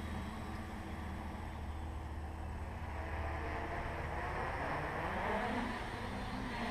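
Hexacopter's six NTM 2826 1000kv brushless motors spinning 9x4.7 propellers, a steady whir from the craft in flight, its pitch sliding up and down about two-thirds of the way through as the throttle changes during acro-mode manoeuvres.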